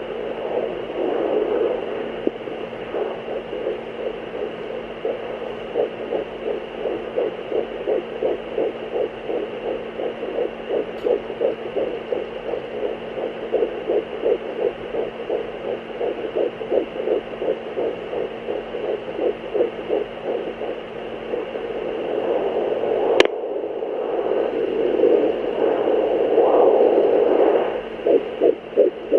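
Fetal heartbeat through a handheld fetal Doppler's speaker: a fast, even pulse of about two to three beats a second over a faint steady hum. Swells of whooshing noise come near the start and again in the last several seconds, and there is one sharp click about three-quarters of the way through.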